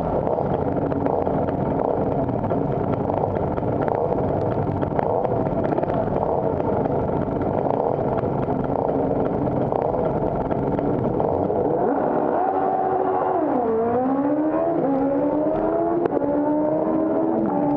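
Two-stroke scooter engine running while stationary, rough and busy at first. In the last few seconds the revs drop and climb back up twice.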